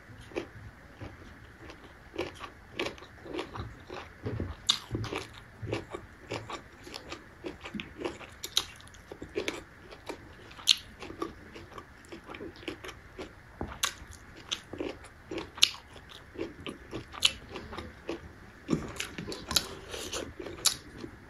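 A person chewing a mouthful of rice with her side dishes, eaten by hand, with short sharp mouth clicks and smacks at irregular intervals.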